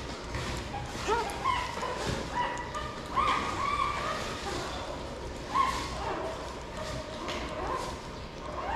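Shih Tzu puppies whimpering and yipping: a string of short, high cries, thickest in the first few seconds, with a sharper one about five and a half seconds in.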